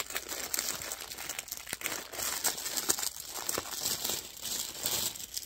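Thin clear plastic wrapper crinkling and tearing as it is pulled off a yarn cake: a continuous run of small crackles.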